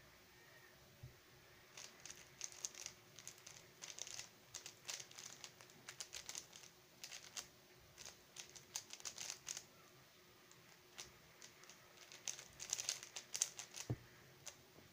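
Rapid plastic clicking and clacking of a stickerless 3x3 speedcube being turned fast in a solve. The turns come in quick flurries, starting about two seconds in, with a short lull about two-thirds through. A single dull knock comes near the end.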